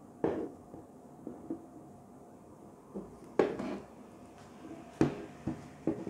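Hands handling a shotgun microphone, its cable with a RODE VXLR minijack-to-XLR adapter, and a plastic camera handle on a table: about five separate plastic knocks and clicks with soft rubbing between them. The loudest knocks come about three and a half seconds in and again at about five seconds.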